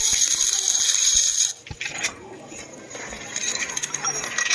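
Stick (arc) welding arc crackling and sputtering steadily, cutting off suddenly about a second and a half in, followed by light metallic clinks and taps.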